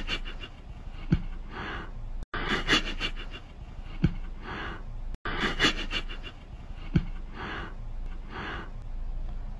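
Quiet breathy sniffs, with a short click three times about three seconds apart; the same few seconds of sound repeat over and over.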